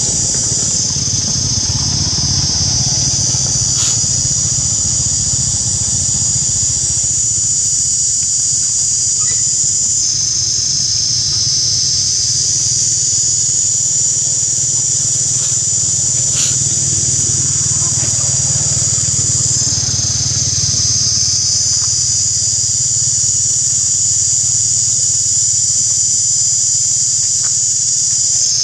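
Loud, steady high-pitched insect chorus that shifts slightly in pitch a few times, over a low steady hum.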